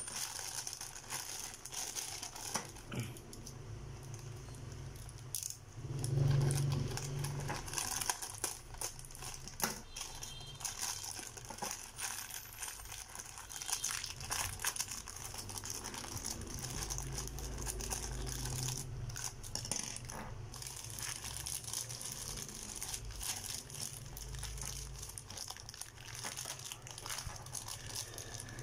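Clear plastic bags crinkling and rustling as hands open them and handle the small Beyblade parts inside, with scattered small clicks of plastic pieces. A louder low bump comes about six seconds in.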